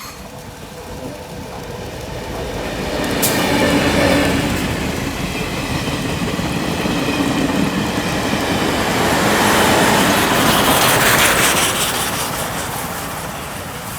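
Recorded sound of a real train passing: the CT273 steam locomotive hauling coaches with the R108 diesel pushing at the rear. Wheels clatter over the rail joints, growing louder over the first few seconds, loudest twice, then fading near the end.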